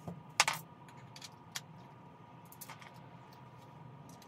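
Wooden parts of a rigid heddle loom being handled during assembly: one sharp click about half a second in, then a lighter click and a few small taps.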